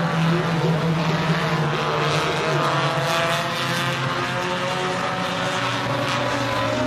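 Several U-Car class race cars running laps on a dirt oval, their engines droning steadily together.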